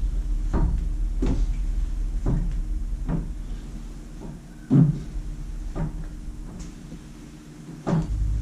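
Microfiber towel wiping water lubricant off car paint after claying, in short separate rubbing strokes about once a second or less, over a steady low background hum that fades for a few seconds late on.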